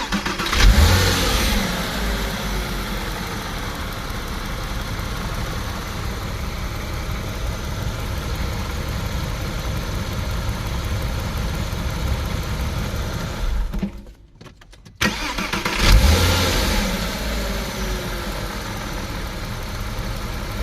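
Porsche Boxster 986 flat-six engine starting, flaring up and settling to a steady idle. About 14 seconds in it cuts out, then starts and flares again a second later before settling back to idle. It runs on a freshly fitted water pump and drive belt, without the whine of the old pump's failed bearing.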